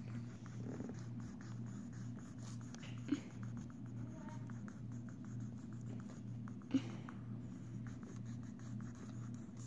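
Pen scribbling rapidly back and forth on lined notebook paper, shading in a blue patch. Under it runs a low steady hum, and two sharp clicks come about three and seven seconds in.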